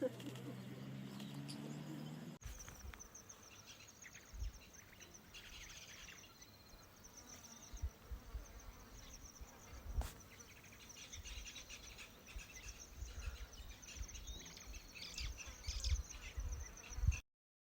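Insects trilling in fast, even high-pitched pulses, with low thumps of wind on the microphone.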